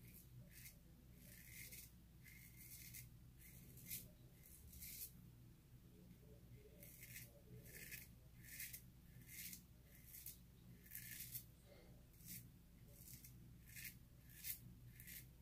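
Kamisori-style shavette with a Feather Artist Club blade scraping through lathered whiskers in short strokes, a quick scratchy stroke about every half second to second, some in close pairs.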